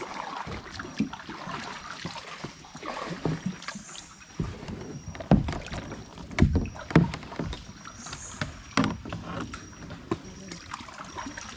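Kayak moving through water: paddle or pedal strokes splash and swish at a regular pace, with a few sharp knocks in the middle.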